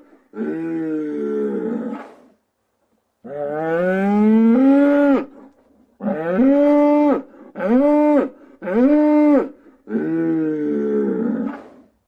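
Cow mooing: six long calls one after another with short pauses between them, the second sliding upward in pitch.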